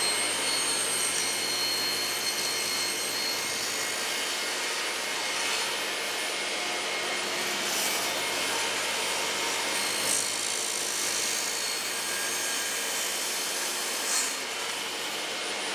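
Table saw running steadily while its blade cuts a kerf through a plywood sled fence and the aluminium rail fixed on top, the crosscut sled pushed through the blade. The blade goes through the aluminium easily.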